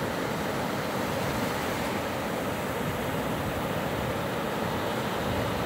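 Ocean surf on a sandy beach: small breaking waves and foamy swash washing up over the sand, a steady even rush of water.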